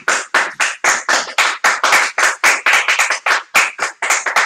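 A small group of people applauding, the separate hand claps plainly distinct rather than blended into a wash.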